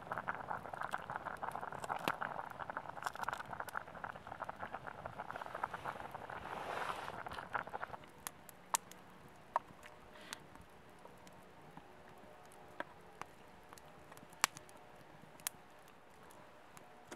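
Water boiling hard in a stainless steel cup over a wood fire, a dense bubbling crackle; about eight seconds in it cuts off to a quiet stretch broken by a few scattered sharp clicks.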